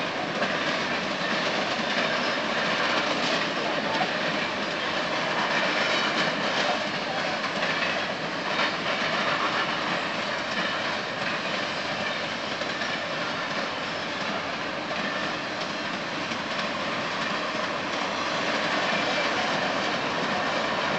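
Freight train of empty BNSF double-stack well cars rolling past, a steady rolling rattle of steel wheels on rail with wheels clacking over rail joints.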